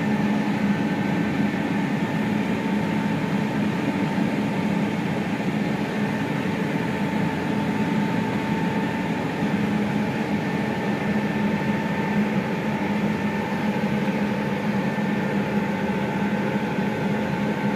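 Combine harvester running steadily while harvesting, a constant mechanical hum with a few held steady tones and no change in speed.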